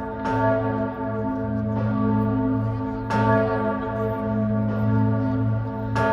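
An old church bell tolling: strokes come about every second and a half, alternately louder and softer. Each stroke rings on over a steady low hum.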